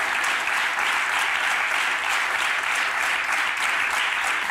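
Studio audience applauding: a large crowd's steady, dense clapping.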